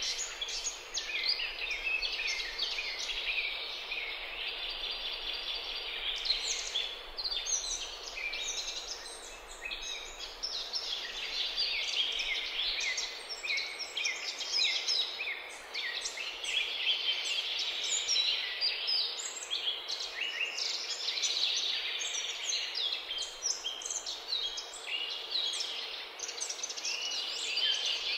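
A dense chorus of many small songbirds singing at once, a constant tangle of high chirps and trills with no break.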